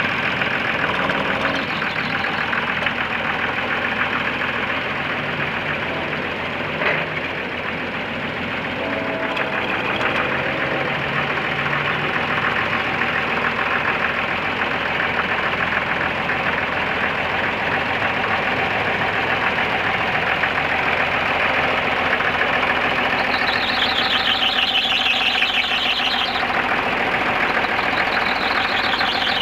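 1966 Case 930 loader tractor's engine running steadily as the tractor is driven, with a single click about seven seconds in and a wavering high-pitched squeal for a couple of seconds near the end.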